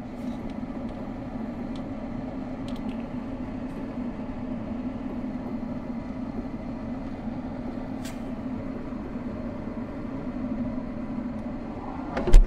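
A steady low mechanical hum with a few faint clicks, then a loud thump about twelve seconds in as a freezer door swings shut.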